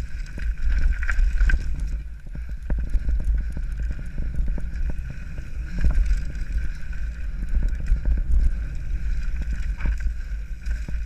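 Mountain bike descending a rocky dirt singletrack at speed: wind buffeting the microphone with a steady rumble, over a continual rattle of small knocks as the bike and tyres run over stones and roots.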